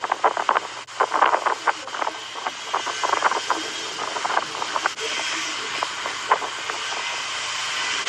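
Strong wind blowing on the microphone over a steady rush of wind and surf, gusty and uneven in the first half, then steadier.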